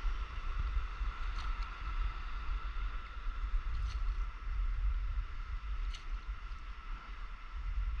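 Wind rumbling on the microphone over water lapping against a paddleboard on calm sea, with a few faint clicks and a thin steady whine in the background.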